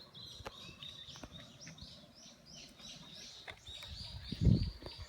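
Bird chirping steadily, short high notes repeated about three times a second, with a single low thump about four and a half seconds in.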